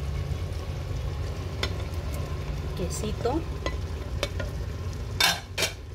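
Cubed cheese being scraped with a wooden spoon out of a container into a simmering clay pot: scattered light clicks and scrapes over a steady low rumble, with two louder scraping rushes near the end.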